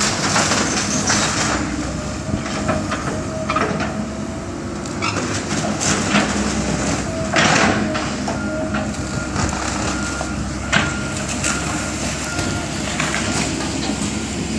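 Komatsu hydraulic excavator running steadily, with repeated sudden cracks and crashes of wood as it tears into the building.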